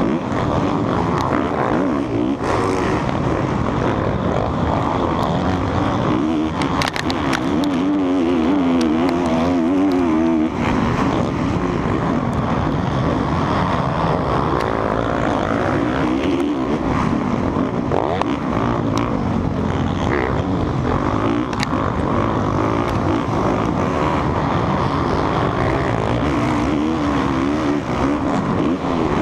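Motocross bike engine running hard at racing speed, its pitch rising and falling steadily as the rider revs and shifts through the turns and jumps.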